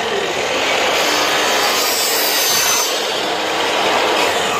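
Makita miter saw cutting through metal U-channel: a steady, loud grinding screech of the spinning blade biting through the channel.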